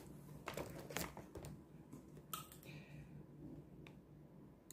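Faint light clicks and taps from handling makeup items and their cases: a few close together about a second in, then single ones further on.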